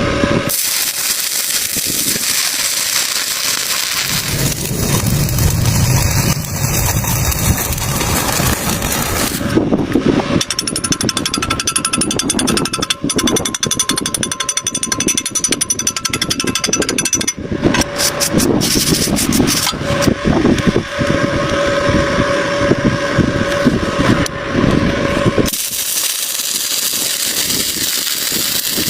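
Loud metalworking noise, dense and crackling with rapid rattling impacts, cut into several segments that change sound abruptly every few seconds.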